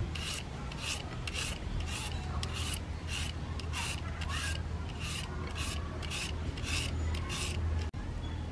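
A julienne peeler scraping down a cucumber, cutting it into thin strips, in quick repeated rasping strokes, about two to three a second.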